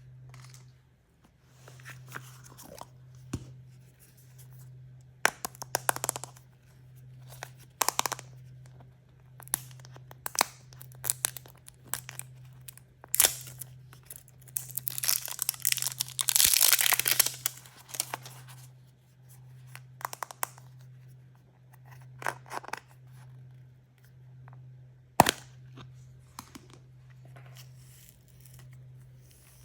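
Surprise-toy packaging being torn open and crinkled by hand: scattered crackles and clicks, a longer tearing stretch about halfway through, and a sharp click near the end.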